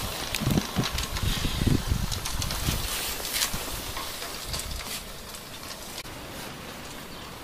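Garden-scale locotractor running along its track on transformer power, its petrol engine not started, with scattered clicks and knocks. Wind rumbles on the microphone, strongest in the first few seconds.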